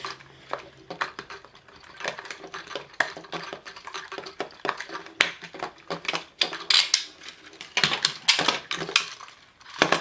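Plastic toy handcuffs being worked with keys, with many irregular clicks, rattles and clinks of the locks, keys and chains against the table, and no steady rhythm. The clatter grows louder for a moment about two thirds of the way in.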